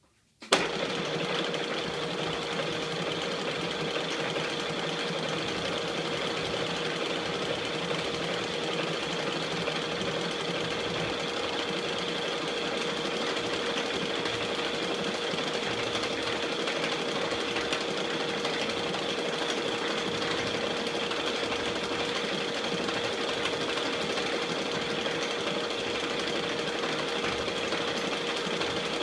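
KART E1N metal lathe switched on about half a second in with a sharp jolt, then running steadily: an even mechanical rattle with a constant hum from the motor and gearing.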